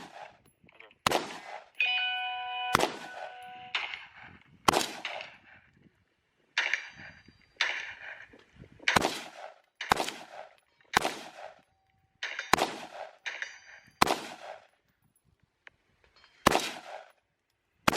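Slow string of about a dozen gunshots, one every second or two, with the clang of a struck steel target ringing on after several of the hits.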